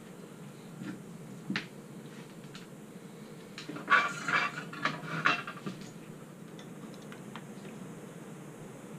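Metallic clinks and knocks of a soldering iron being pulled from its metal holder stand and handled on the bench. There are a few light taps first, then a cluster of sharp clinks about four to six seconds in.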